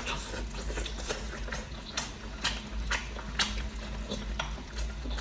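A person chewing a mouthful of prawn with wet lip-smacking: sharp, wet mouth clicks about twice a second.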